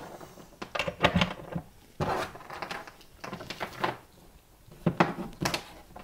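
Multimeter test leads with crocodile clips being handled and plugged into the meter's jacks on a tabletop: a string of separate sharp clicks and knocks.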